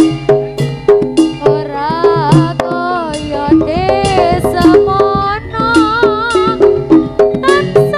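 Live jaranan accompaniment: hand drums and tuned metal percussion play a steady, driving beat, with a wavering melody line with vibrato over it through the middle.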